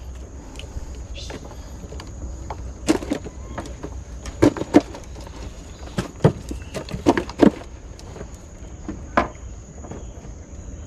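Steady high-pitched drone of night insects such as crickets, with a scatter of short knocks and handling sounds, the loudest ones a few seconds in.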